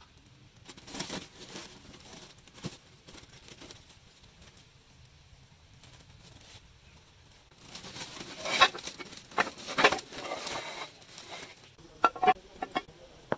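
Woven plastic sack rustling and crinkling as it is handled and opened, heaviest in a long stretch in the second half. Near the end, a few sharp clinks as a metal engine cover is set down on a hard surface.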